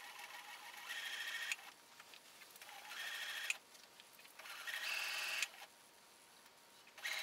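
Singer electric sewing machine stitching through denim in short runs: about four bursts of motor whine, each a second or so long, with pauses between, the machine speeding up partway through each run.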